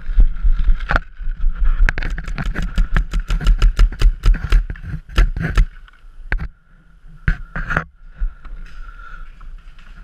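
Paintball marker shots: a rapid string of sharp pops, about seven a second, from about two seconds in to just past halfway, then a few more near the end. Underneath, heavy thuds of running footsteps and gear jostling against the microphone during the first half.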